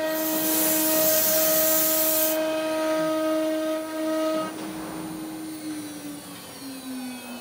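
CNC router spindle engraving wood, a steady high whine with a loud hiss over it that cuts off sharply after about two seconds. Near the end the whine slides down in pitch as the spindle winds down at the end of the job.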